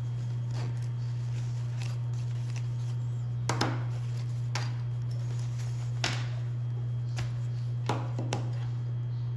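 A few light, separate clicks and knocks from charger cords and other small items being handled and taken out of a bag, over a steady low hum.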